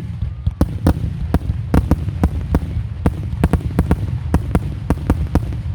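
Fireworks display: many sharp bangs in quick, irregular succession, several a second, over a continuous low rumble of reports.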